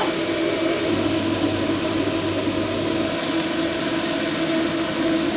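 A giant ground-beef patty sizzling on a hot flat-top griddle, over a steady machine hum.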